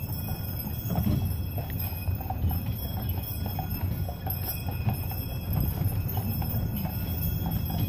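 Horse-drawn carriage rolling along: a steady rumble of the wheels with the horse's hooves clip-clopping on top.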